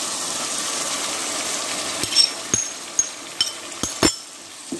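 Onions frying in an aluminium pot, a steady sizzle that quietens near the end as onion paste goes in. About two seconds in, a run of about six sharp knocks and clinks of utensils against the pot.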